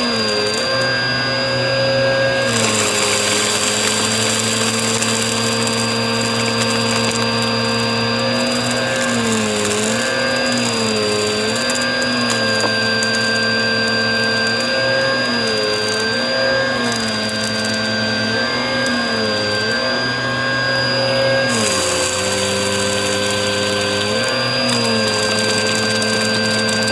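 Vacuum cleaner running over carpet and picking up crunchy, gritty debris. Its motor tone dips and recovers again and again as the head is worked back and forth.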